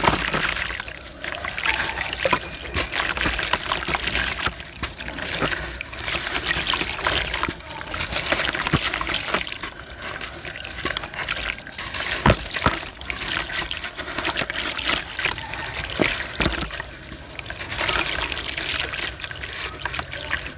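Brittle sand stones being crushed and crumbling: a continuous run of irregular, gritty crackles and sharp crunches that swell and fade, with a trickling, pouring quality.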